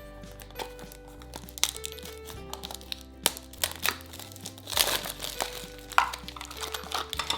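Plastic packaging of a Roblox mystery toy box crinkling and crackling as it is unwrapped by hand, with sharp crackles scattered throughout, over light background music.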